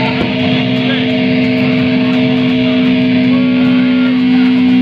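Electric guitar through an amplifier holding one steady low note, with thinner feedback tones sliding up and down over it from about three seconds in.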